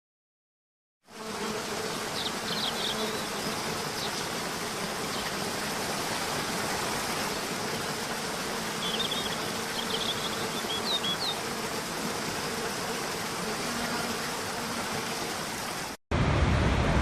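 Steady rushing of a waterfall, with a faint steady buzz underneath and a few short bird chirps twice. It starts about a second in and cuts off abruptly near the end.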